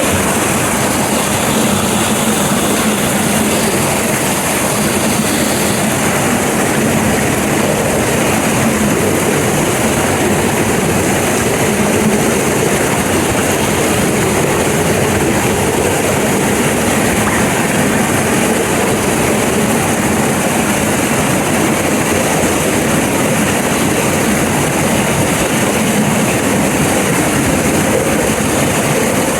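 Loud, steady rush of water from a mountain waterfall or cascade, unbroken throughout.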